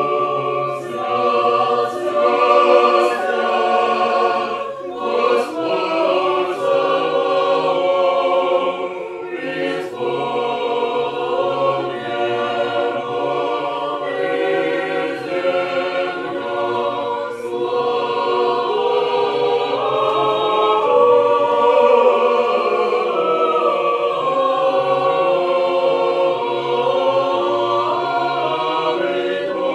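Mixed choir of men's and women's voices singing Russian Orthodox liturgical chant a cappella in sustained, changing chords.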